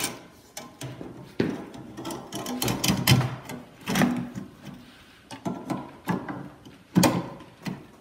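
Irregular metal clanks, clicks and scrapes as the Model A shift-tower spring, about 50 pounds of load, is compressed in a homemade steel pipe tool and the shift lever is worked into the cast-iron tower casting held in a vise. A few knocks ring briefly, the loudest about three seconds in and again near seven seconds.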